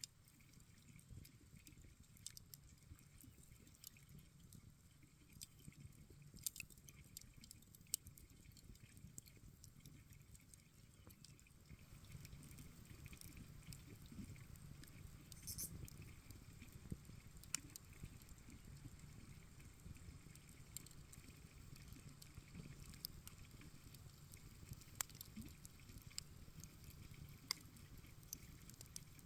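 Faint campfire crackling: irregular sharp pops and snaps of burning wood over a soft low rumble of the flames.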